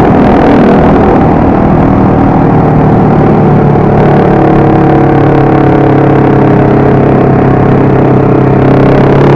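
Motorcycle engine running under way, its pitch wavering at first and then holding steady from about four seconds in.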